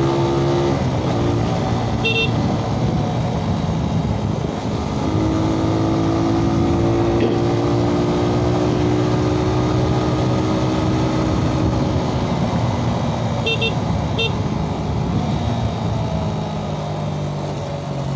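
Motorcycle engine running while riding, with road noise, its pitch drifting slowly with speed. Short horn beeps about two seconds in and twice more near the end.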